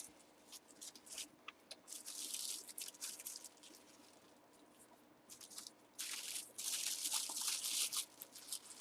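Plastic wrapping crinkling and rustling as it is handled, in two stretches: briefly about two seconds in and again for a couple of seconds near the end, with small clicks between.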